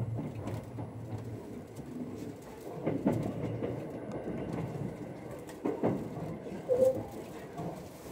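Running noise inside a limited express electric train's passenger car moving slowly over yard tracks and points: a steady rumble with wheels knocking over rail joints and turnouts, and a short squeak near the end.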